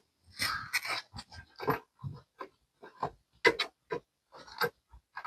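Irregular short scraping and rubbing noises as a speedometer cable in its sleeve and a pull-string are drawn along under the car by hand.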